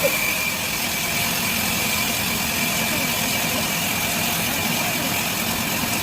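Sawmill wheel saw running steadily: a constant mechanical drone with a thin, unchanging high whine.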